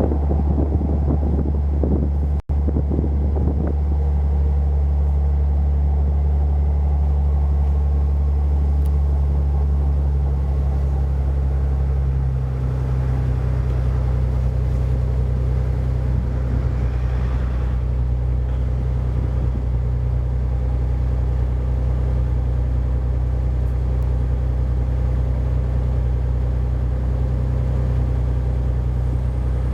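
Nissan 300ZX (Z32) engine idling steadily just after start-up. About twelve seconds in the idle note changes and a faint whine swells and fades over several seconds: the abnormal 'hyuun' noise that comes a moment after starting.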